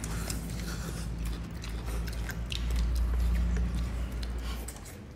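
People eating noodles: slurping and chewing, with short clicks of chopsticks against ceramic bowls, over a steady low hum.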